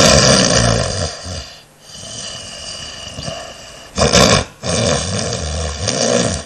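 A young woman snoring loudly in her sleep, heard from a night-time recording. There is a long snore at the start, then a quieter stretch, then a short snore about four seconds in and a longer one near the end. This is rhonchopathy, habitual snoring, loud enough to be taken for a huge man's.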